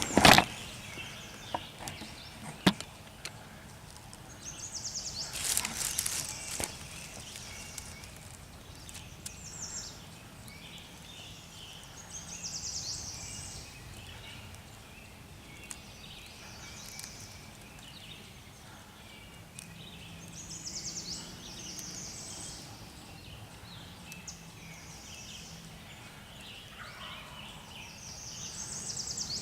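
Spring woods at dawn: songbirds repeat short high trills every few seconds, and a wild turkey gobbles faintly near the end. A sharp knock sounds right at the start.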